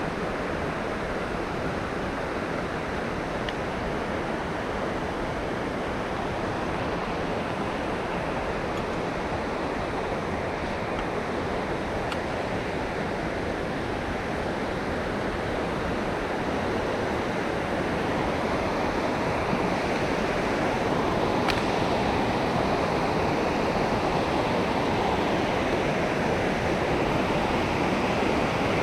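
Rushing river water, a steady roar that grows a little louder toward the end.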